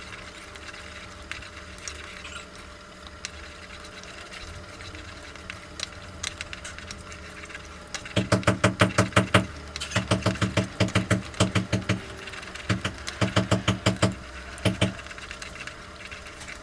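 Spoon stirring thick, finished broken-wheat halwa in a pan: soft scrapes and clicks at first, then from about halfway through fast rhythmic scraping against the pan, about seven strokes a second, in three bursts.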